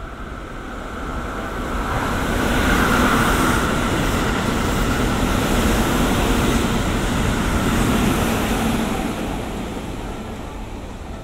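Keihan new 3000 series limited express electric train passing through the station at speed without stopping. It grows louder over the first few seconds, runs loud and steady, then fades near the end.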